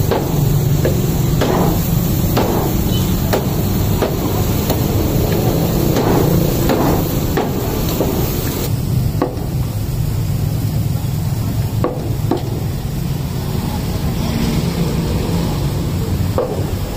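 Irregular sharp clacks of metal tongs on a charcoal grill grate over a steady background hum. About halfway the background changes and the knocks become sparser.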